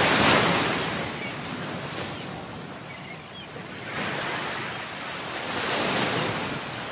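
Ocean surf breaking on the beach, in swells that come and go: loudest at the start, easing off, then building again twice.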